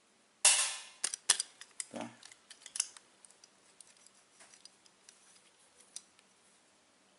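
A homemade sheet-metal punch made from a car engine valve is handled over a galvanized sheet: a loud metallic clatter about half a second in, then a quick string of sharp clicks and knocks that thins out to occasional light ticks.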